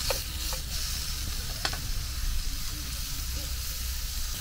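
Food sizzling in a frying pan on a portable gas camping stove as it is stirred, with a few sharp clicks of the utensil against the pan.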